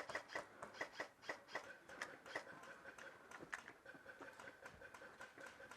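Faint, rapid clicking of airsoft guns firing, about four shots a second at first and sparser after about two and a half seconds, with a faint steady high tone joining about two seconds in.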